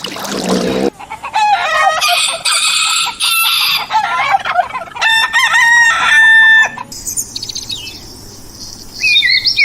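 Rooster crowing twice, the second crow ending in a long held note. Small birds chirp near the end.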